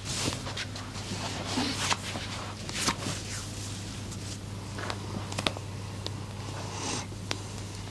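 Soft rustling and brushing with scattered small clicks, over a steady low hum.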